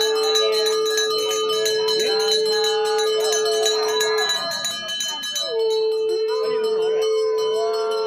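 Pooja bell ringing continuously. A long steady note is held twice, once until about four seconds in and again from about five and a half seconds, with voices underneath.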